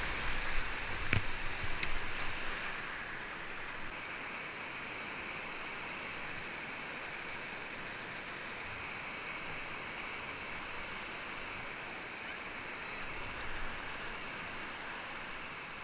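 Steady rushing of whitewater from a river rapid, heard from a kayak running it. Background music fades out over the first few seconds, with a single sharp click about a second in.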